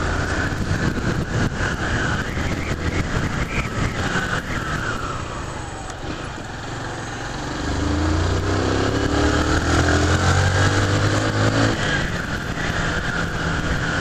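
Honda CG 150 Fan motorcycle's single-cylinder four-stroke engine running on the move, with wind rushing over the microphone. The engine eases off a little before the middle, then pulls harder with a rising note from about eight seconds in.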